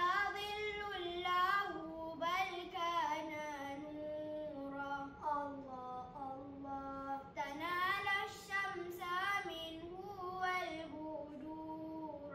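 Two young boys chanting selawat, the Islamic devotional praise of the Prophet, without instruments. They sing one melodic line of long held, wavering notes and ornamented runs.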